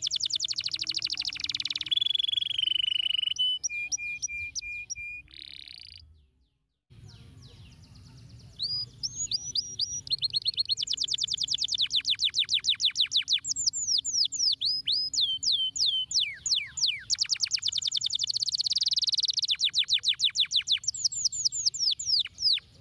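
Domestic canary singing a long song of rapid rolling trills and whistled notes that sweep up and down. The song breaks off into silence for under a second a little over six seconds in, then carries on.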